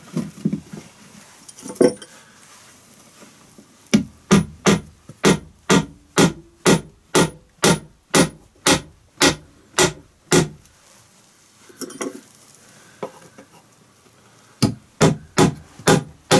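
Hammer driving 100 mm nails into a wooden floor plank: a few scattered handling knocks first, then from about four seconds in a run of even, ringing blows at roughly two and a half a second. After a pause with a couple of knocks, a fresh run of blows starts near the end.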